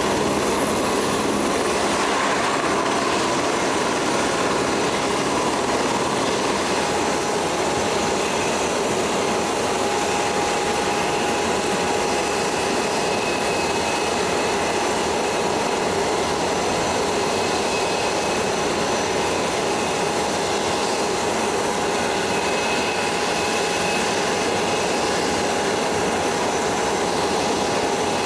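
Aircraft turbine engines idling: a steady rushing noise with a constant whine, and a high whistle that slides down and fades in the first couple of seconds.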